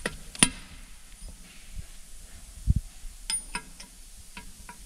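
Metal clicks and clinks of valves and hand tools handled against a Cursor 13 diesel cylinder head: a sharp clink about half a second in, a dull knock near the middle, then a few lighter clicks.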